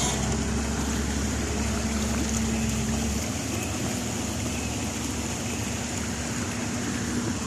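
A CAT excavator's diesel engine running steadily with a constant hum; its deepest rumble drops away about three seconds in.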